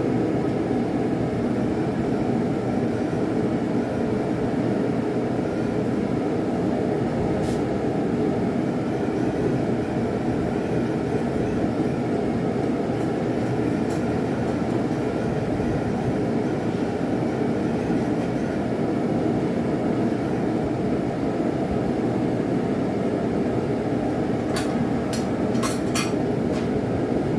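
Blacksmith's forge running with a steady rushing noise, with a few light metallic clinks near the end.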